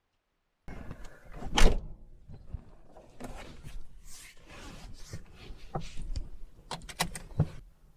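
Garage door being shut: a loud bang about a second and a half in, then rattling and scraping, and a quick run of sharp clicks near the end.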